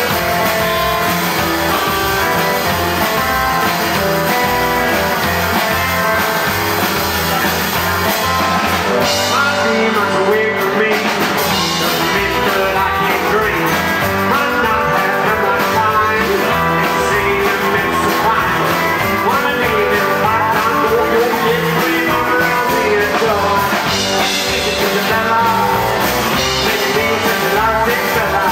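Rockabilly band playing live: Telecaster-style electric guitar, acoustic guitar, upright bass and drums, at a steady full volume.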